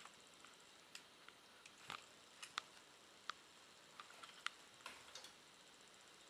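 Faint, scattered light clicks and taps, irregular and sparse, as a Shiba Inu puppy shifts about on a mat and settles down to lie on it.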